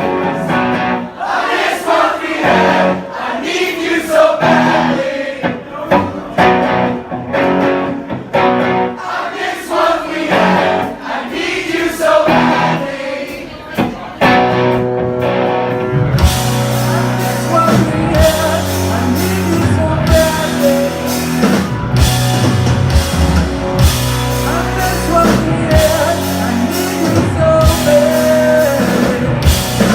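Live rock band playing: a lighter passage of guitar with some singing, then about halfway through the full band comes in with drums and bass.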